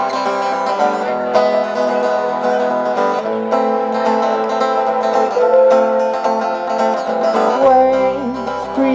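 Live band music in an instrumental passage with no singing, led by a strummed acoustic guitar, with bass and percussion.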